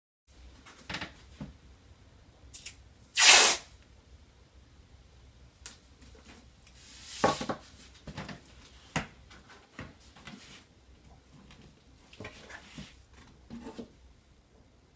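Masking tape pulled off the roll in short rips, the loudest about three seconds in and another about seven seconds in, with light taps and rubbing as the strips are pressed down along the edges of paper on a wooden board.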